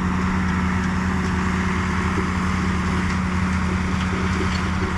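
Vehicle engine running at a steady speed, a constant hum with a strong low end and a steady noisy wash above it.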